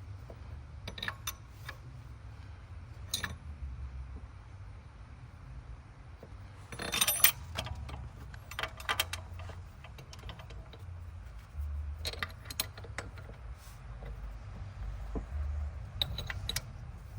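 Scattered metallic clinks and knocks of hand tools and bolts being handled while fitting an engine mount, with a louder clatter about seven seconds in, over a low steady rumble.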